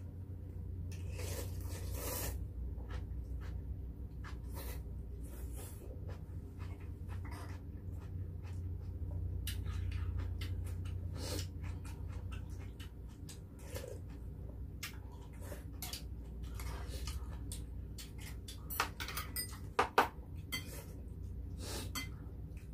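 Eating sounds of two people having beef-rib soup: broth sipped off spoons, rib meat chewed and gnawed, and scattered sharp clinks of spoon and chopsticks on the pots and bowls, the loudest two near the end. A low steady hum runs underneath.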